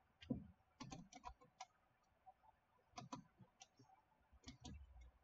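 Faint clicking of a computer mouse and keyboard, a few quick clicks at a time in small clusters, about one, three and four and a half seconds in.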